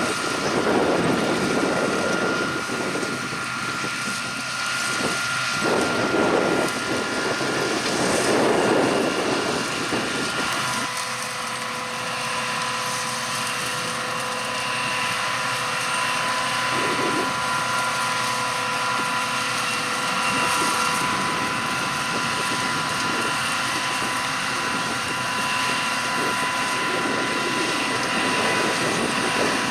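Harvest machinery (combine harvester and tractor) running steadily, with a constant high-pitched mechanical whine. Wind gusts buffet the microphone through the first several seconds.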